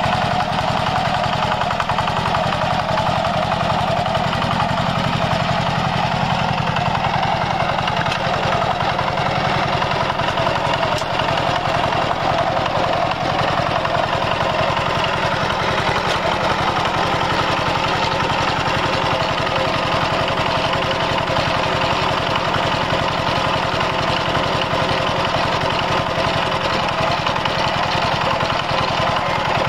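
Walking tractor's single-cylinder diesel engine running steadily with a rapid, even chugging.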